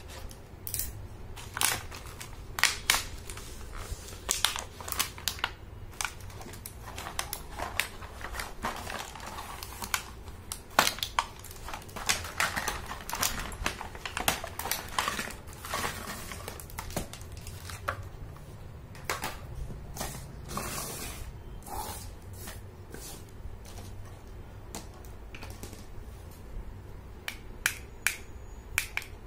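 Clear plastic blister packaging being torn open and crumpled by hand, an irregular run of sharp crackles and crinkles.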